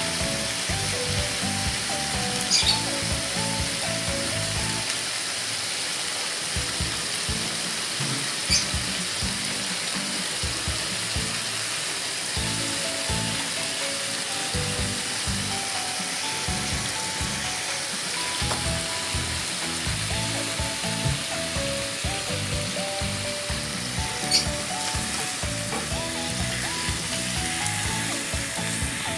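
Pork pieces frying in a non-stick pan with a steady sizzle, over background music. Three sharp clicks stand out, spread through.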